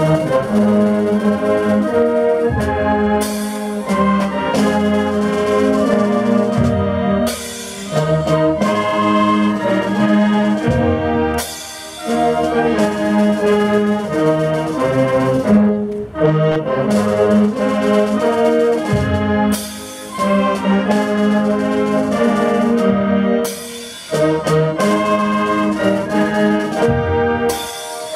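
High school concert band playing brass-led band music, in phrases of a few seconds each with brief breaks between them.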